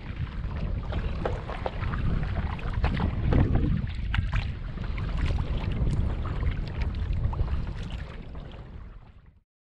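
Kayak moving across open water, with wind rumbling on the microphone and water splashing and trickling in many small sharp ticks; the sound fades out near the end.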